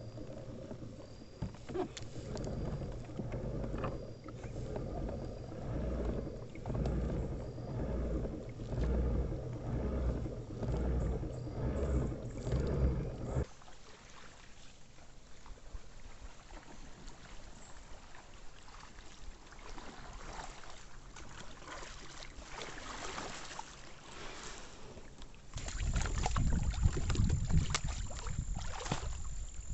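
Kayak being paddled: paddle strokes and water against the hull in a steady rhythm of about one stroke a second, which cuts off suddenly about halfway through to a quieter wash of water, with a louder stretch of noise near the end.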